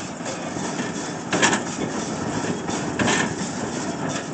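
New Holland Hayliner 67 hay baler running empty off the tractor's PTO, its plunger knocking once about every second and a half over the steady running of the tractor engine. It is running freely, with no weird noises.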